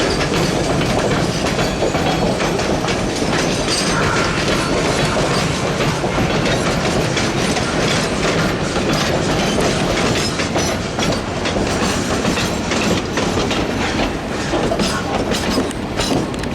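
East Broad Top narrow-gauge train rolling past, its wheels clicking steadily over the rail joints.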